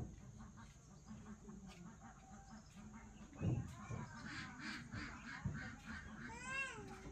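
Ducks quacking: a run of short calls in the second half, with one longer call near the end.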